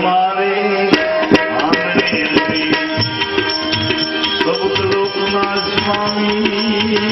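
Instrumental passage of a Gujarati bhajan: hand drums keep up a quick rhythm of strokes under held melody notes, with no singing.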